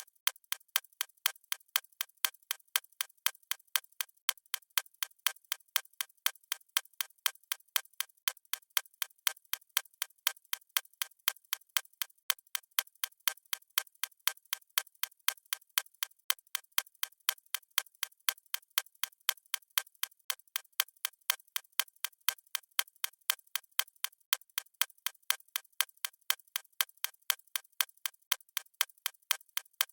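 Clock ticking sound effect: even, sharp ticks at a steady pace of about two a second.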